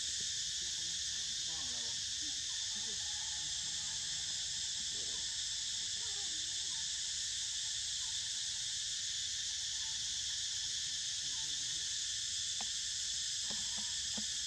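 Steady, high-pitched chorus of forest insects that runs on without a break, with a few light clicks near the end.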